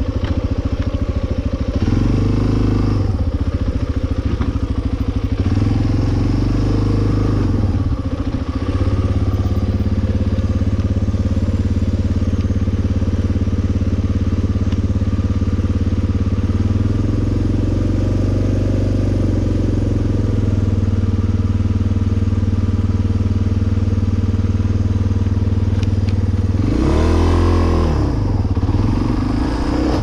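Suzuki Djebel 250XC's single-cylinder four-stroke engine running at low road speed, its note going up and down with the throttle; near the end it revs up sharply and drops back.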